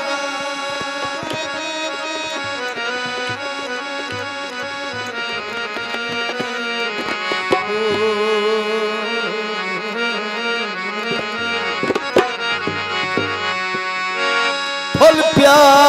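Instrumental break in a Punjabi folk song: a sustained reed-instrument melody over hand-drum beats. The male singer's voice comes back in near the end.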